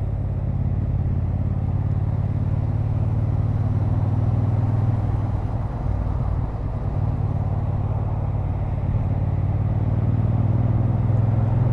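Motorcycle engine running steadily at motorway speed under a layer of wind and road noise, a low drone that eases slightly about six seconds in.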